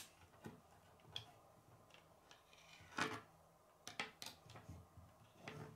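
Plastic K'nex rods and connectors clicking and scraping on a wooden floor as a hand shifts them: a handful of soft clicks and short rubs, the loudest a brief scrape about three seconds in.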